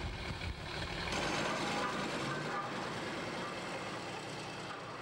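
Small industrial shunting locomotive's engine running as it moves along the track, fading slightly towards the end.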